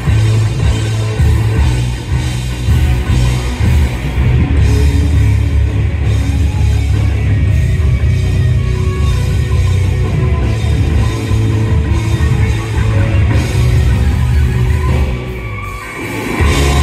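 Live rock band playing loud, heavy music. Near the end the sound drops for a moment, then the full band comes back in.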